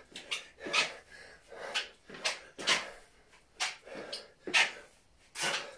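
A man breathing hard in rhythm with double-arm swings, a loud breath about once a second with quieter ones between.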